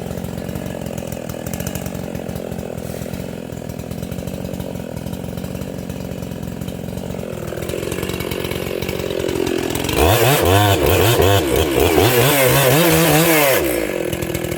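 Makita EA7900 (Dolmar 7900) 80cc two-stroke chainsaw with an opened-up, modified muffler, running steadily at first. Its revs climb from about two-thirds of the way through, and then it runs loud at full throttle with the pitch wavering as it cuts through oak. It eases off just before the end.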